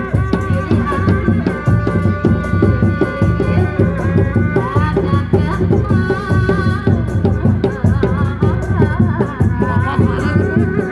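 Kuda lumping folk music played live: dense, steady drumming with rattling percussion under a wavering, ornamented melody line that grows busier in the second half.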